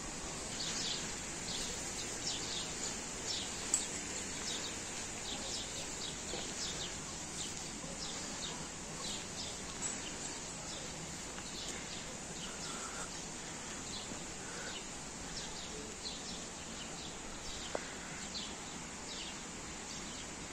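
Many small birds chirping in short, high calls in the trees, over a steady hiss of outdoor background noise. A single sharp click sounds about four seconds in.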